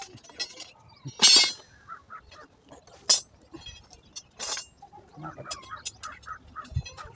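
Steel wire pieces clinking and scraping as they are handled and a loop of wire is worked by hand: a series of sharp metallic clinks, the loudest a scraping rattle about a second in. Birds chirp between the clinks.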